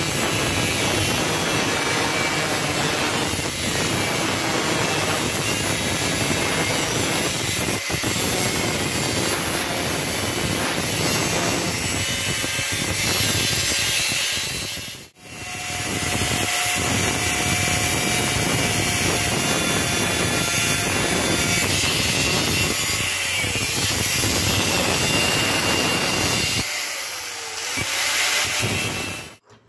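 Angle grinder with a thin cutting disc cutting through car spring steel, a loud steady grinding whine. It breaks off for a moment about halfway through, and the grinding thins out near the end as the disc comes off the metal.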